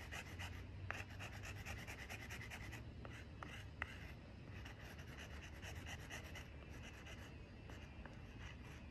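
Stick of sidewalk chalk scraping on concrete pavement in quick, repeated short strokes as a drawing is shaded in; faint.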